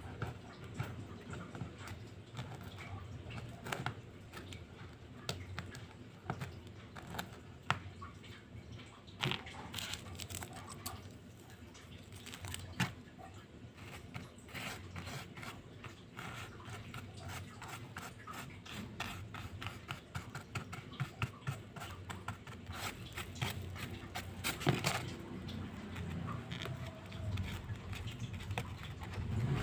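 Small scratches, ticks and rustles of fingers and a small brush working a sand-art card, sweeping loose coloured sand off the sheet. The ticking is busiest in the middle.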